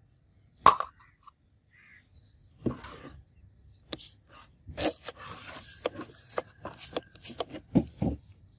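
A hand trigger spray bottle squirting degreaser onto a polished steel knife blade: a rapid series of about ten short hissing squirts in the second half, after a single sharp click near the start.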